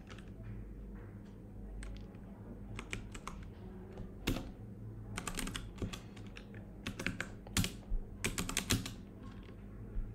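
Typing on a computer keyboard: scattered key clicks at first, then quicker runs of keystrokes with short pauses between them in the second half.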